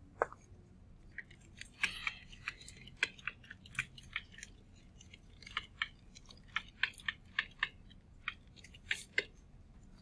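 Digital pen tip tapping and scratching as it handwrites: a quick, irregular run of sharp little clicks, several to a second.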